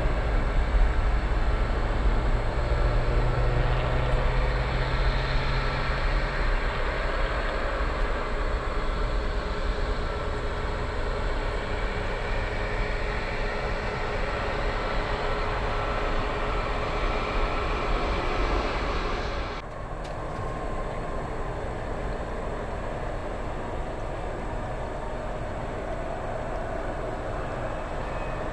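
Airliner jet engines at takeoff power, a steady rushing roar that slowly eases as the jet climbs away. About two-thirds of the way through it cuts abruptly to a quieter, steady jet noise from a Boeing 737 MAX 8's CFM LEAP-1B engines on the runway.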